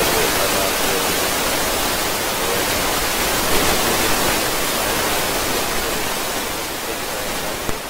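Loud, steady hiss from a plugged-in lavalier microphone sold as a Boya BY-M1, which the owner suspects is a counterfeit with no noise reducer. The hiss eases slightly near the end.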